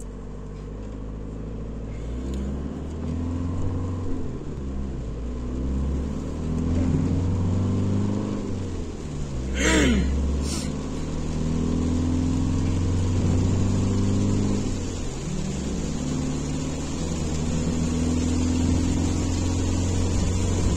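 Car engine and road noise inside the cabin while driving, a steady low drone that slowly rises and falls in pitch. About ten seconds in there is a brief, louder burst with a falling tone.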